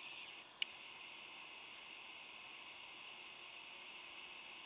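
Steady, faint high-pitched buzzing hiss, with one short click about half a second in.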